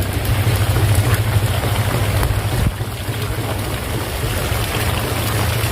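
Heavy rain falling steadily, with a low rumble underneath that eases a little about halfway through.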